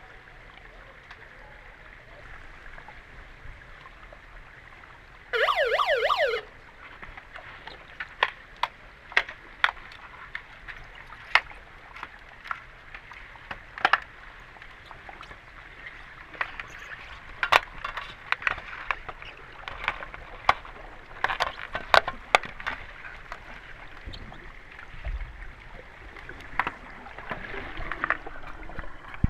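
Underwater hockey play heard through an underwater camera: a steady water hiss, a loud warbling buzzer tone about five seconds in lasting about a second, the kind of underwater sounder a referee uses to stop play, then many sharp clicks and knocks of sticks and puck against the pool bottom.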